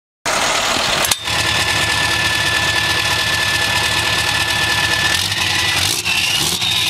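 Scania V8 truck engine running through a short, open side-exit exhaust pipe, with a steady high whistle over it. About five seconds in it is given throttle: the low exhaust note gets stronger and a high whine starts climbing in pitch.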